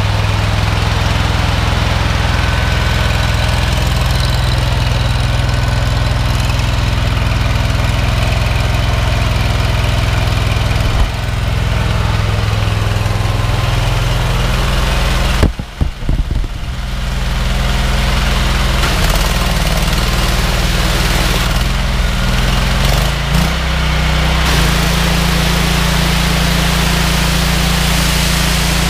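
Honda GX690 V-twin petrol engine running steadily while driving a 3000 psi interpump pressure-washer pump. Its note shifts a little after about eleven seconds and dips briefly about halfway through. Over the last few seconds the loud hiss of the high-pressure water jet from the lance joins it.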